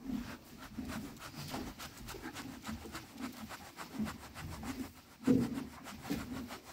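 A hand rubbing and scratching a horse's thick winter coat in quick repeated strokes, about four a second, the hair rustling close to the microphone, with one louder stroke about five seconds in.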